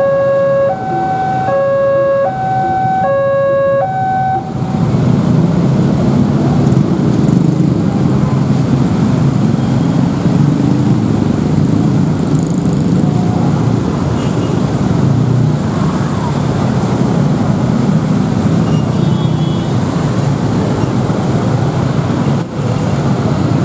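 Railway level-crossing warning alarm sounding its two-tone signal, alternating between a higher and a lower pitch about every half second, then cutting off about four and a half seconds in as the train clears and the barrier lifts. Engines of the waiting motorcycles and cars then run and pull away across the crossing.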